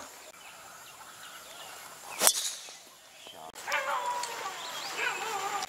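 A golf club strikes the ball once, a single sharp crack about two seconds in. Later there are wavering, pitch-gliding animal calls over a steady high insect drone.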